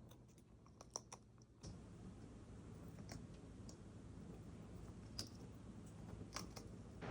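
Faint, scattered sharp clicks, several close together early and a few single ones later, as a Patagonian conure picks at and cracks seed mix and alfalfa pellets with its beak.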